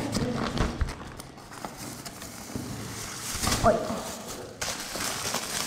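A plastic carrier bag rustling as it is pulled out of an insulated delivery backpack, with irregular knocks and clicks of handling.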